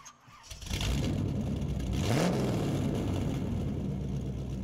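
Car engine sound effect: an engine starts running loudly, revs up once about two seconds in, then settles into a steady run.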